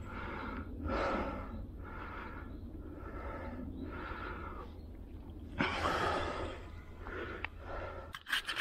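A person breathing hard close to the microphone, about one breath a second, then a few sharp clicks near the end.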